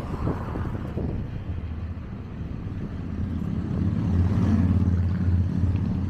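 A motorcycle engine passing close by in the oncoming lane, growing louder from about halfway through and loudest near the end, over wind noise on the microphone.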